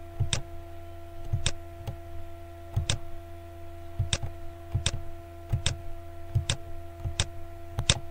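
Computer mouse button clicking about a dozen times, irregularly, a little under a second apart, over a steady electrical hum.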